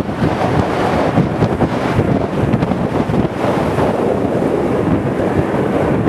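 Strong wind buffeting the microphone, a loud, gusty, rushing rumble that fluctuates constantly and masks everything else.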